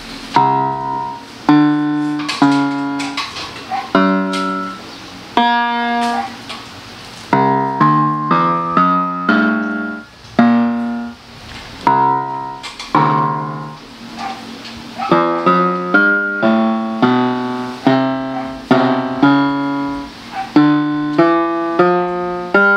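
GL-400 electronic keyboard played on a piano voice: a tune of single notes and chords, each struck and then fading, with quicker runs of notes in the middle and toward the end.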